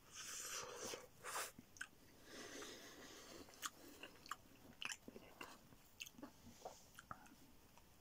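Close-up eating of a slice of pepperoni pizza: a bite near the start, then chewing with many sharp wet mouth clicks.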